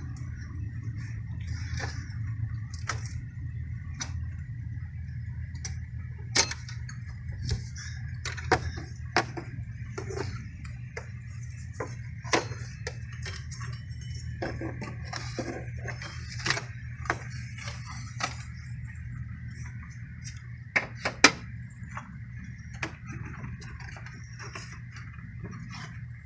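Hand tools being worked on the serpentine belt and tensioner of a 1996 Toyota Supra: irregular sharp metal clicks and clinks over a steady low hum, with a few louder clinks, two of them close together late on.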